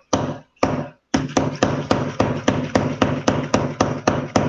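Knocking on a hard surface: two knocks, a short pause, then rapid, even knocks at about five a second.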